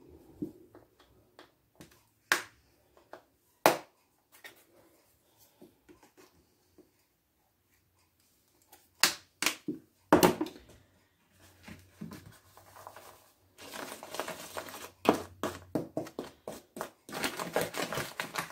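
Kitchen handling sounds from metal measuring spoons, spice containers and a plastic dish on a counter: scattered sharp clicks and taps, then, from about two-thirds of the way through, a continuous scratchy rattling as the seasoned flour in the plastic dish is worked.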